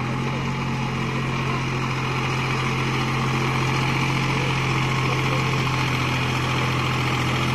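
Deutz-Fahr Agrolux 50 4WD tractor's diesel engine running steadily as the tractor works through deep mud.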